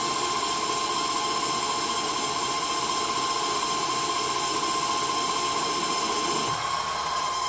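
CNC lathe running an automatic roughing cycle, turning a metal shaft: steady spindle-motor whine with a fixed tone under the cutting noise. Near the end the lower cutting noise drops away and a higher hiss comes in as the pass changes.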